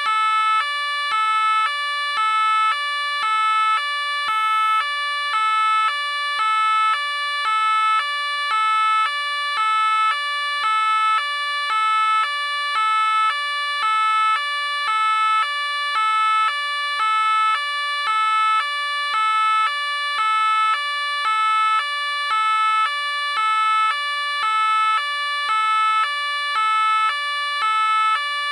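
French police car two-tone siren, alternating evenly between a high and a low note, each held about half a second, in a steady unbroken cycle.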